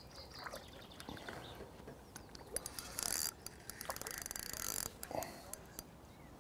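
Fishing reel's clutch ratcheting as a hooked fish pulls line off, in a short burst about three seconds in and a longer run of rapid clicks about a second later, with scattered single clicks around them.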